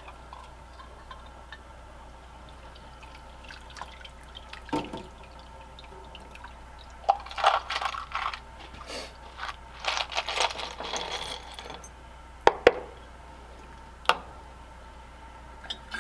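Wire parts basket lifted out of an ultrasonic cleaner's tank of soapy water, with carburetor parts in it. About seven seconds in, water splashes and drains off the basket and parts for a few seconds. Then come three sharp metal clinks as the basket is set down on the tank.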